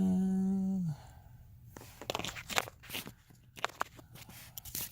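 A man's short hum for about a second, then a run of crackling, crinkling rustles, like hands rummaging through plastic packaging.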